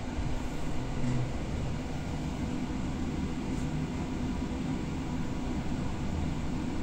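Steady rumble of a moving passenger train heard from inside the carriage, with a faint steady hum.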